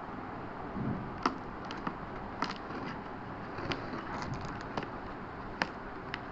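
Light clicks and taps of a hard disk and its packaging being handled, scattered unevenly over a steady background hiss.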